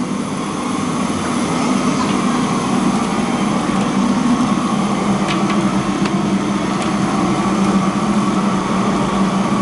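Steady roar of a commercial gas wok stove's burner, with a few faint light clicks of utensils against a steel bowl.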